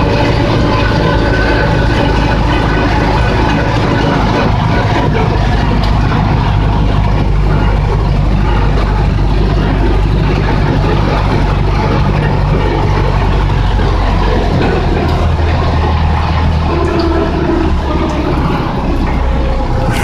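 Diesel engine of a YuMZ-6 tractor running steadily under way, heard from inside the cab. About fifteen seconds in the engine note shifts lower.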